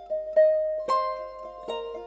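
Background music: a plucked string instrument playing a melody of single notes, each left to ring out, about two a second.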